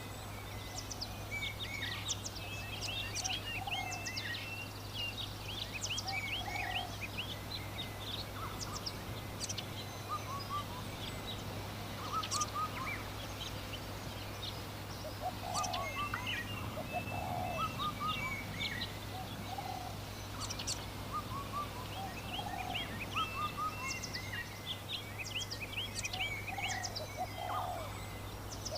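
Many small birds chirping and calling continuously, with lower, shorter calls from other birds in small clusters every few seconds, over a steady low hum.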